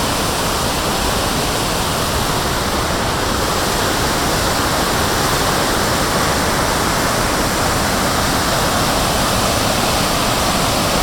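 Loud, steady rush of a large waterfall.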